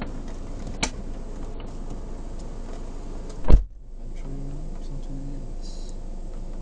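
Steady low hum inside a stopped car's cabin, with a sharp click just under a second in and a loud thump about three and a half seconds in. Two short, even buzzing hums follow about a second later.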